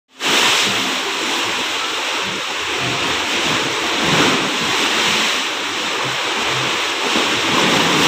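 Big sea waves surging and churning around the wooden piles beneath a stilt boardwalk: a steady loud wash of surf that swells and eases irregularly.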